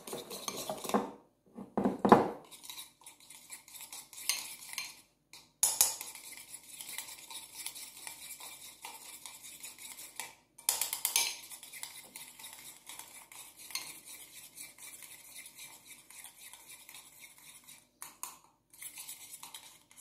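A spoon stirring and scraping a soft butter mixture around a ceramic bowl, with a steady scrape broken by louder clinks of spoon against bowl near the start and twice more, about 6 and 11 seconds in.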